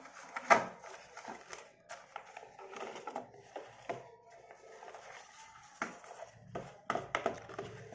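Hands handling a smartphone and its packaging: irregular clicks, taps and rustling, with a sharper knock about half a second in and a quick run of clicks near the end.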